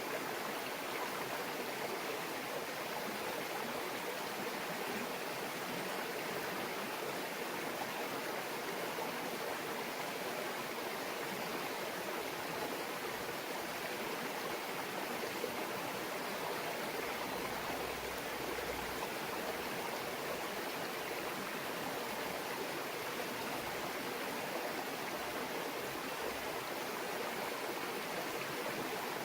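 A small murmuring brook, water running and babbling steadily without a break.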